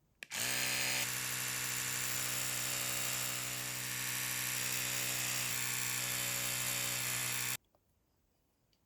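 A small electric motor whirring steadily. Its pitch rises as it spins up in the first second, and it cuts off abruptly near the end.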